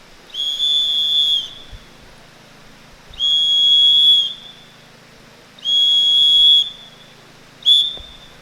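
Whistle blown in three long blasts and then one short blast, each a steady high tone. This is the Thai Boy Scout whistle signal for lowering the national flag at 6 p.m., calling everyone to stop and stand to attention.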